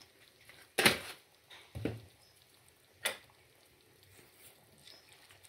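A spoon knocking against the metal cooking pot three times while sugar is added to the soup: the first, about a second in, is the loudest, with the others about a second apart.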